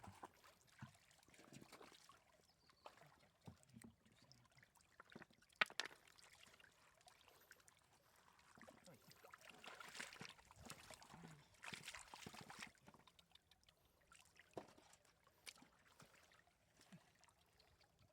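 Faint splashing and trickling of shallow floodwater being disturbed by hand, with a few scattered knocks. The water noise grows louder for a few seconds about halfway through.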